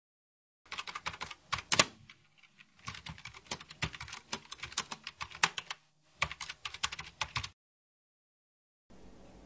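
Computer keyboard typing sound: quick, irregular key clicks, with two short pauses, as a typing effect.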